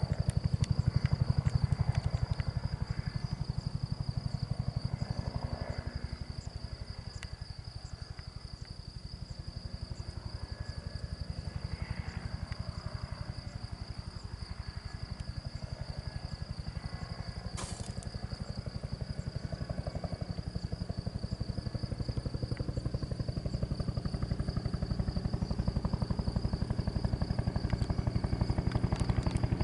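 Bell 212 helicopter's two-blade main rotor beating rapidly over its twin turbines, with a steady high whine; it fades a little and then grows louder again toward the end.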